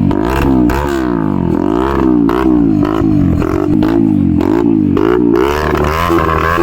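Intro music track with a beat, repeated swooping tones and a steady bass drone.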